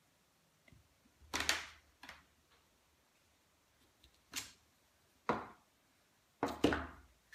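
A few short knocks and paper rustles as a wood-mounted rubber stamp is pressed onto card lying on scrap paper and lifted off; the loudest knock comes near the end.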